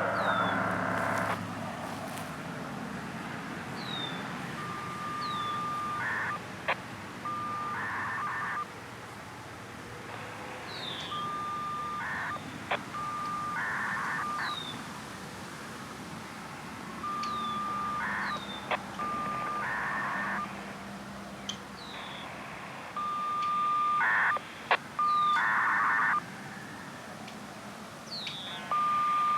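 A repeating electronic signalling sequence, about every six seconds: a steady mid-pitched beep, then a short burst of higher tones with sharp clicks, like telephone dialling tones. Short, high, falling chirps sound between the sequences.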